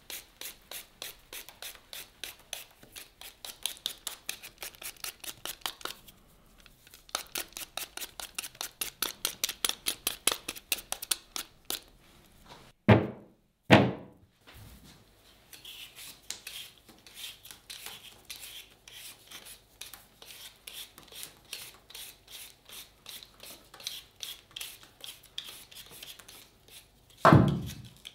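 Hand vegetable peeler scraping the skin off raw potatoes in quick, rhythmic strokes, several a second. About halfway through come two heavy thumps as peeled potatoes are set down on a tray, and one more thump near the end.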